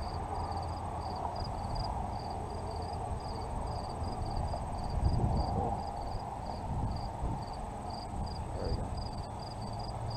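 An insect chirping steadily outdoors, short high chirps at about three to four a second, over a low, uneven rumble.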